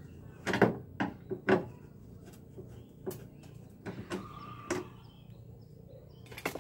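Irregular metallic clicks and knocks of a T-handle socket wrench working a bolt on a car body, about a dozen sharp strikes, the loudest in the first second and a half.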